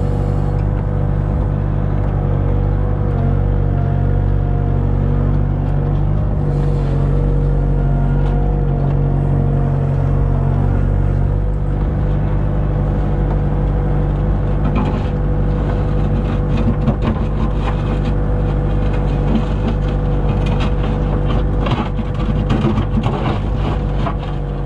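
Kubota KX057-4 mini excavator's diesel engine running steadily, heard from the operator's seat. From about halfway there are scattered knocks and scrapes as the bucket works the gravel.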